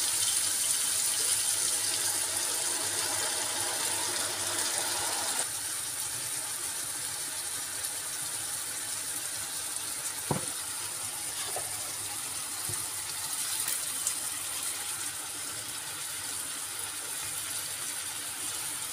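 Chopped mushrooms and onion sizzling in a frying pan: a steady, high hiss that eases a little about five seconds in. A single sharp click, like a utensil against the pan, about ten seconds in.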